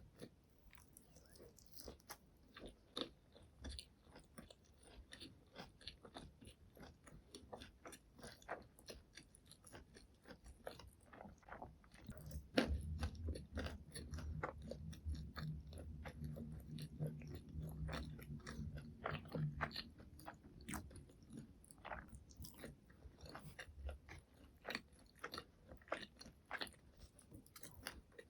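Close-miked chewing and biting of McDonald's fast food: a stream of sharp, crisp clicks and crunches. From about halfway through, for several seconds, it grows denser and louder, with a low drone underneath.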